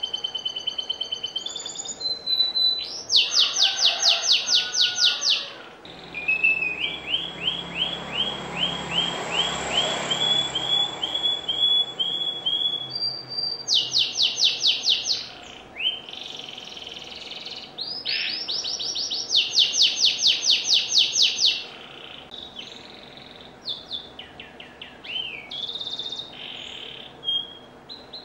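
Domestic canary singing hard in a long, varied song: bursts of very fast, high trills alternate with a slower run of repeated notes, about two a second, in the middle, and with scattered chirps and short phrases near the end.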